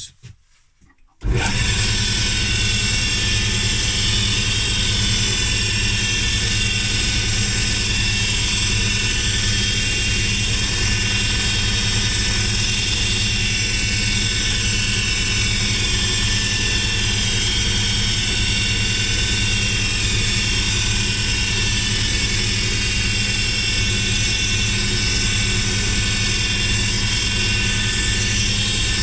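Wood lathe switched on about a second in, its motor running loud and steady at a constant speed while wax is buffed onto the spinning wooden pen blank.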